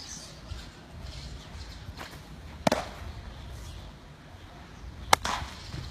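Two sharp pops of a baseball smacking into a leather glove, about two and a half seconds apart, the second the louder.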